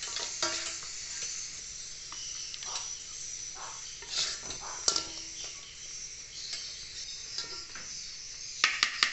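Metal spoon scraping and clinking as fried salted fish is scooped from a wok into a plastic container, over a faint sizzle. Near the end a rapid, evenly repeated chirping of swiftlets starts up and continues.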